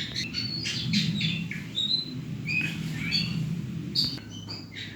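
Small birds chirping, with short high chirps and whistles repeating at irregular moments, over a low steady hum that drops away near the end.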